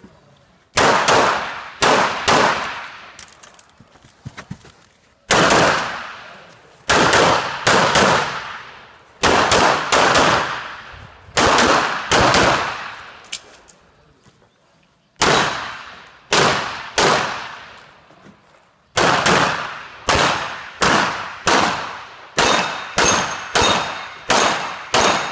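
Pistol shots fired during a competition stage: quick groups of two to four shots with pauses of a second or more between them, then a steady run of about two shots a second near the end. Each shot has a short echoing tail.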